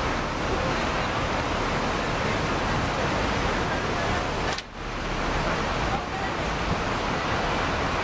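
Steady rushing outdoor noise with the murmur of a crowd's voices under it, breaking off for a moment a little past halfway.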